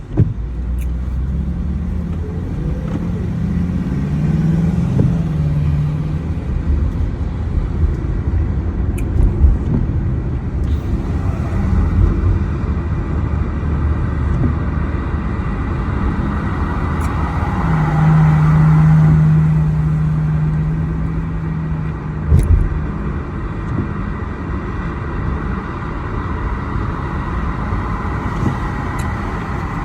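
Motor vehicle sound: a steady low rumble with an engine drone that comes and goes, and a hiss that swells and fades through the middle.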